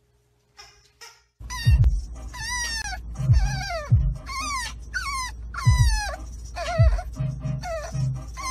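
French bulldog puppy whining in a car, starting about a second and a half in: a string of high cries that fall in pitch, over a steady low rumble of road noise.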